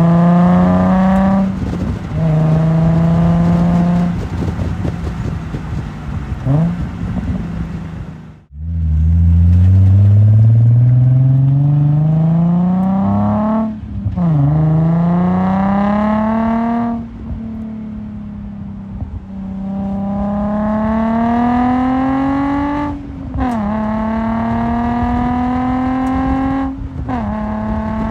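Nissan 350Z's 3.5-litre V6 through a Z1 cat-back Touring exhaust, accelerating in several pulls: the exhaust note rises steadily in pitch, then drops sharply at each upshift. It cuts out briefly about eight seconds in, and holds steadier for a couple of seconds in the middle.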